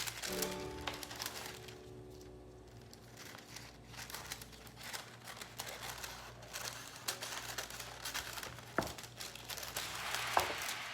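Plastic packaging crinkling and rustling as it is handled, with small clicks and knocks throughout and a louder rustle near the end.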